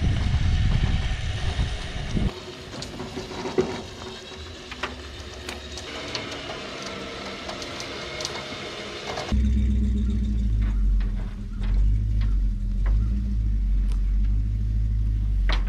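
Winch pulling a stuck truck out of a mud hole, with scattered clanks and clicks over a low rumble. About nine seconds in, the sound changes abruptly to a steady low engine hum.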